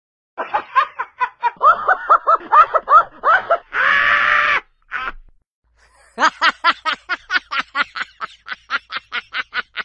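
Recorded laughter in two bouts: a rhythmic 'ha-ha-ha' laugh broken by a wheezy breath about four seconds in, then a faster, higher-pitched giggle of about five pulses a second that fades near the end.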